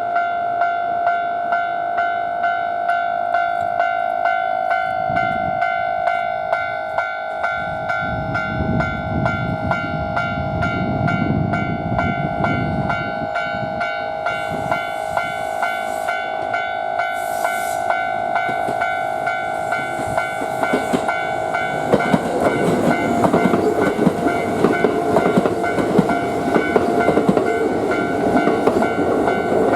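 Level-crossing warning alarm ringing steadily in a rapid repeated ding. Under it a train passes about 5 to 13 seconds in, rumbling, and another train passes louder from about 22 seconds, its wheels clattering over the rail joints.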